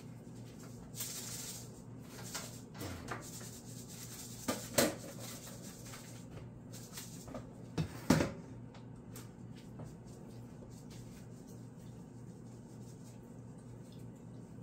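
Kitchen handling noise: scattered knocks and clicks, the loudest in two quick pairs about four and a half and eight seconds in, over a steady low hum.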